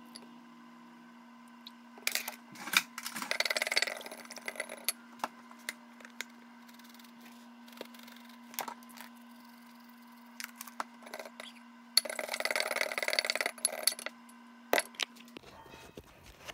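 Seasoning jars handled and shaken over a bowl: sharp clicks and knocks of caps and jars, and two spells of rattling shakes, about two seconds in and again about twelve seconds in. A steady low hum runs underneath and stops near the end.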